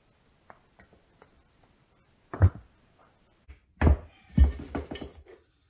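Hollow knocks and clatter from handling a Hi-Blow septic air pump's plastic housing on a workbench as its cover is taken off. A few light ticks come first, then one sharp knock a little over two seconds in, and two heavy knocks near the four-second mark with a short rattle after them.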